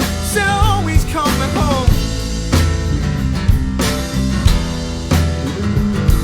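Rock band music: a drum kit playing over guitar and bass, with a short wavering melodic line in the first two seconds.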